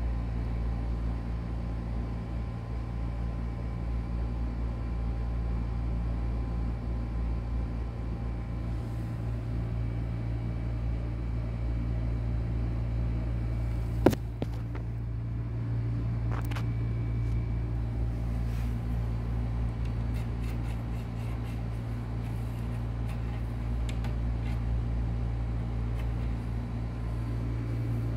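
Steady low background hum with faint high steady tones, and one sharp click about halfway through.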